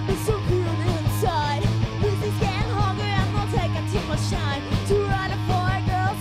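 Live punk rock band playing: electric bass, guitar and drums, with a woman's vocals over them.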